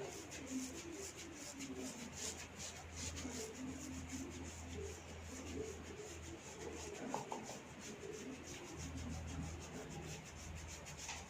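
Hands rubbing and tugging at hair on the scalp during a cetut rambut head massage: a faint, continuous run of quick rasping strokes, over a steady low hum.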